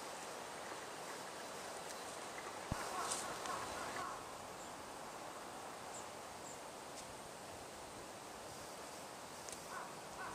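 Dry fallen leaves rustling as pale thrushes and black-faced buntings turn them over while foraging, in a short burst about three seconds in and again faintly near the end, over a steady outdoor hiss.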